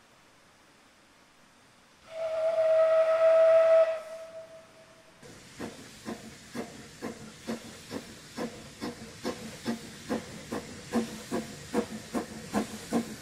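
Narrow-gauge steam locomotive sounds one steady whistle blast of about two seconds, then sets off. Its exhaust chuffs begin a few seconds later at about two a second, quickening and growing louder as it approaches, over a steady hiss of steam.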